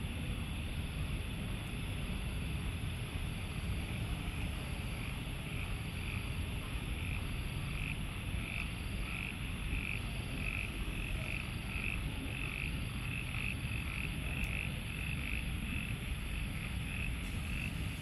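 A frog calling in an even series of short, high notes, about two a second, starting a few seconds in and clearest in the middle, over a low steady rumble.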